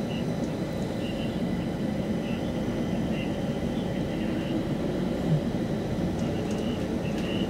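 Stockholm Metro C20 train running, heard from inside the car as it pulls away from a station and gathers speed: a steady rumble of wheels and running gear with a faint steady high whine above it.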